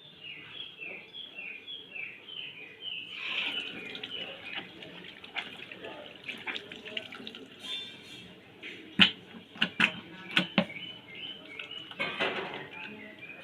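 Water running from a tap into a sink, with several sharp knocks about nine to ten and a half seconds in. A quick, repeated high chirping is heard at the start and again near the end.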